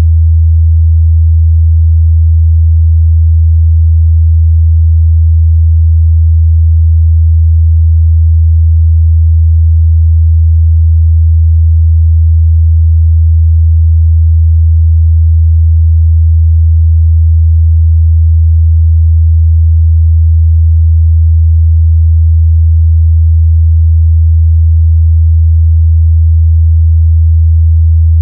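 A steady 81 Hz sine-wave test tone: one low, constant hum with no change in pitch or loudness.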